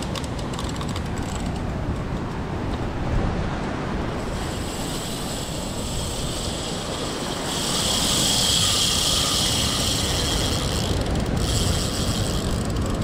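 Spinning reel's drag and gears whirring under the pull of a hooked fish, with a louder, higher whir for about four seconds past the middle as line pays out.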